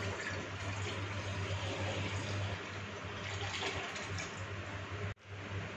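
Milk being poured from a large jug into a cooking pot: a steady splashing pour that cuts off suddenly about five seconds in.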